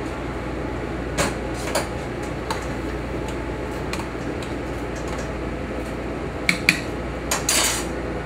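Pans and utensils clinking and knocking on a kitchen counter and stove, a handful of separate sharp clicks with a longer scrape a little after seven seconds, over a steady background hum.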